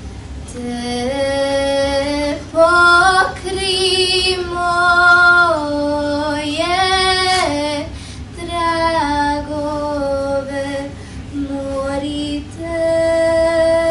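A girl's solo voice singing a slow melody in long held notes, in phrases with short breaks between them, settling into one long held note near the end.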